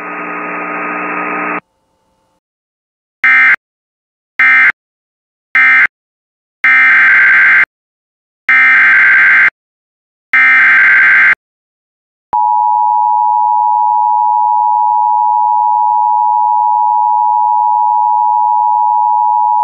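Emergency Alert System data tones: three short buzzing bursts (the end-of-message code closing the previous alert), then three longer one-second bursts (the SAME header opening a new alert, a severe thunderstorm warning). They are followed about a second later by the steady two-tone EAS attention signal, held for about eight seconds.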